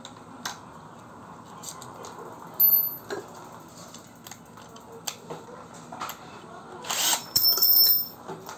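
Cordless drill and a steel drill bit being handled over ceramic tiles: scattered clicks and knocks, with two louder bursts of sharp metallic clinks and a brief ring, about two and a half seconds in and again near the end. The drill's motor does not run.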